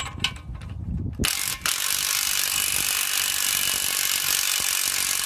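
Ryobi cordless impact wrench hammering continuously on the nut of a wheel-bearing press tool, drawing the old press-fit front wheel bearing out of the steering knuckle. A few light clicks of the tool being set in place come first; the hammering starts about a second in.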